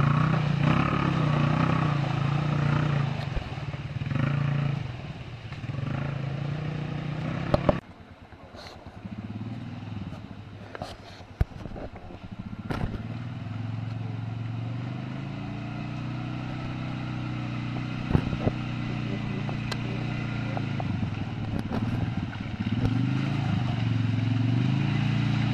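Quad bike (ATV) engines running and revving as the quads work through deep mud, the pitch rising and falling with the throttle. The sound drops away abruptly about eight seconds in, then an engine builds up again as the next quad comes through.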